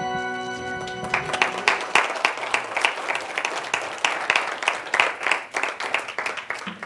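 The last acoustic guitar chord rings out and fades, then a congregation applauds for about five seconds, the clapping thinning and dying away near the end.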